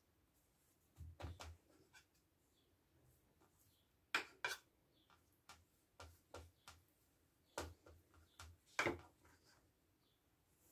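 Faint kitchen handling: a few sharp clicks and taps of a spoon against a ceramic bowl and on a plastic cutting board as thin pastry is folded and pasted. The clearest taps come about four and nine seconds in.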